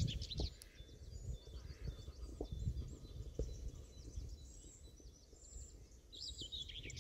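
Small songbirds chirping and twittering over a low outdoor rumble, with a rapid run of high chirps in the first half and another short phrase near the end. A few faint ticks are mixed in.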